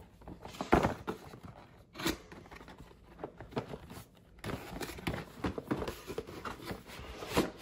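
Cardboard packaging of a drone box being opened and handled: card sliding and rubbing against card, with scattered sharp knocks. The loudest knock comes just before the end.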